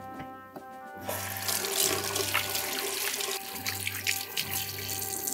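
Kitchen faucet running, its stream splashing over soapy hands as they are rinsed; the water comes on about a second in and runs on. Background music with a regular bass pulse plays underneath.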